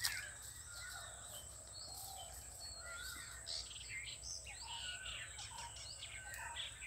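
Many small birds chirping and calling, with short whistled notes overlapping throughout, over a steady high-pitched insect drone.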